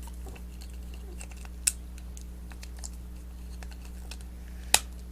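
Hard plastic action-figure parts clicking as an arm is being pushed into a build-a-figure torso: scattered light clicks, with two louder sharp snaps, one a little before the middle and one near the end.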